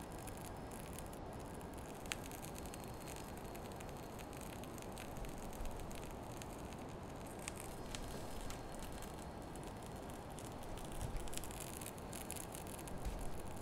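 Steady low hiss with a sharp click about two seconds in and a few fainter clicks and light rustles later on.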